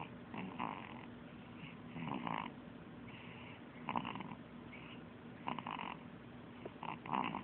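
Baby snoring in its sleep: a snore on each breath, about every one and a half to two seconds, five in all.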